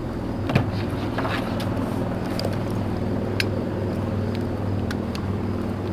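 Steady low machine hum, like an engine running, with a few light clicks and rattles of sling hardware being handled.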